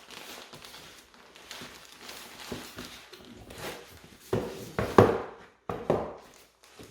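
Packaging being handled during an unboxing: rustling, then a few sharp knocks of hard plastic about two thirds of the way in, the loudest a little after the middle.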